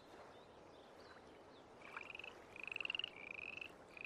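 Frogs calling in a marsh: faint background at first, then from about two seconds in, four short, high, rapidly pulsed trills, one after another.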